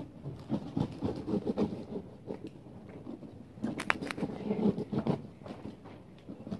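Irregular rustling and scraping of hands working among dried pampas grass and flower stems, with a few sharp clicks about four seconds in.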